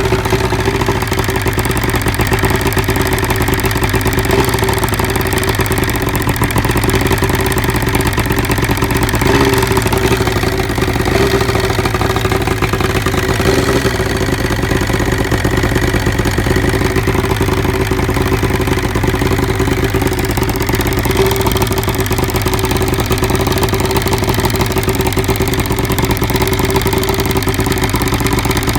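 1975 Evinrude 70 hp two-stroke outboard motor running steadily at idle.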